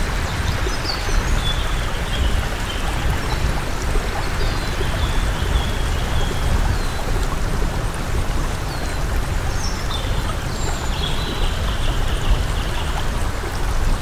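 Flowing stream water rushing steadily, with short high chirps scattered over it, a few in the first seconds and more from about ten seconds in.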